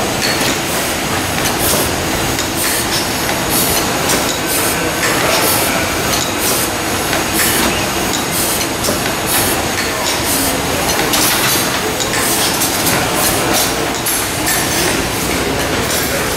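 Corliss steam engines running, their trip valve gear clicking sharply about once or twice a second over a steady mechanical clatter.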